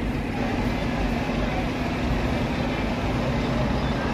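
Steady city traffic noise, a rumble of road vehicles passing below, with a steady low hum.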